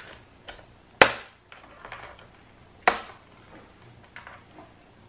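Plastic snap-fit clips of a Lenovo ThinkPad X250's bottom cover popping free as the cover is pried open. Two sharp clicks come about one and three seconds in, with lighter ticks between them.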